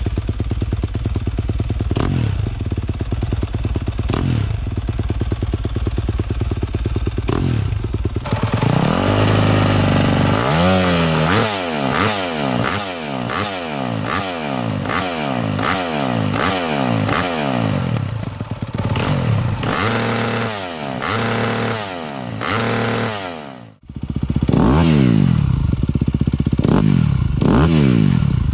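A 250cc four-stroke single-cylinder motocross bike with an aftermarket exhaust, running with a few brief throttle blips. From about a third of the way in it is revved up and down over and over, about one rev a second. A short gap comes near the end, then the revving goes on.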